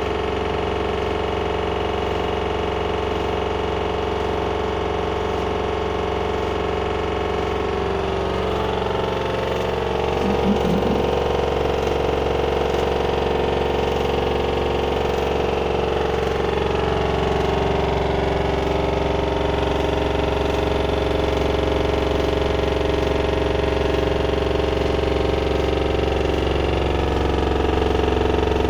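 LG washer dryer combo spinning its drum at high speed, a loud, continuous noise that the owner likens to a jack hammer on the 1400 spin, though the machine is level and the drum bearing has no play. Its tones shift in pitch as the spin speed changes, about a third of the way in, and it grows a little louder there.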